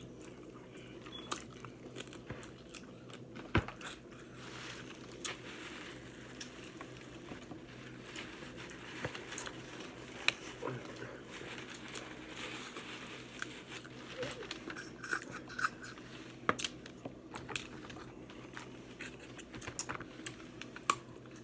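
Close-up eating: chewing, with scattered sharp cracks and crunches as Alaskan snow crab legs are broken open, over a faint steady hum.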